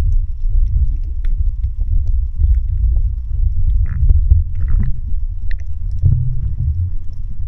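Muffled underwater rumble of water moving against a submerged camera, with scattered faint clicks and a couple of short crackles.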